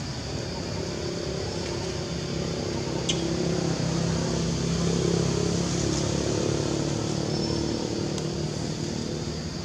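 A motor vehicle's engine running, getting louder toward the middle and fading again as it passes.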